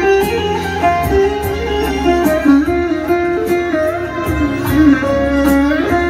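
Four-string bağlama playing a solo melody, one line of plucked notes with slides and bends between pitches.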